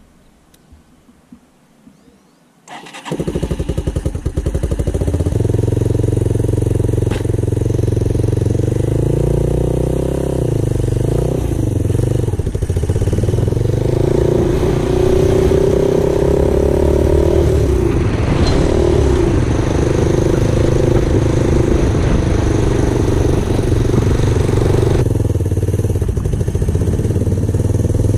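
A few light clicks, then about three seconds in the trike's small gasoline engine starts and runs at a steady fast beat, its note shifting up and down as the reverse trike pulls away and drives along the road.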